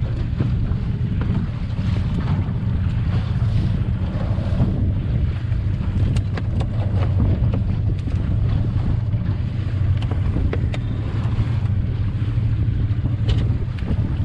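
A steady low rumble on an open fishing boat, with a few light knocks and clicks scattered through it.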